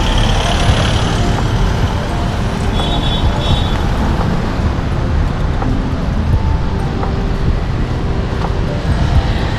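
Road traffic: cars driving past close by, a steady noise of engines and tyres.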